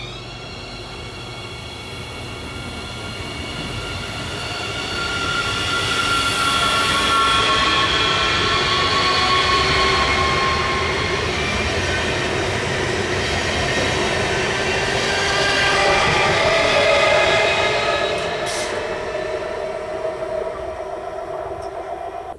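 Double-deck electric multiple unit passing close by: rolling wheels on the rails under a set of high whining tones that slowly drop in pitch. It builds up, stays loud through the middle and fades as the last cars go by.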